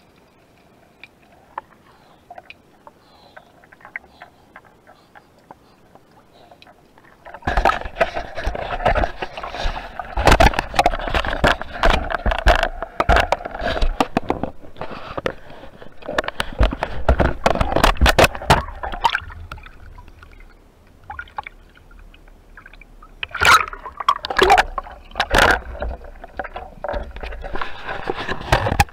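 Water sloshing and gurgling around an underwater camera, with many sharp clicks and knocks. Faint crackling at first, then it turns loud suddenly about seven seconds in.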